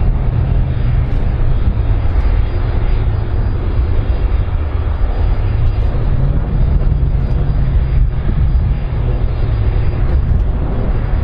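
Airbus A310-304 airliner's jet engines running as it rolls along the runway: a steady, deep rumble.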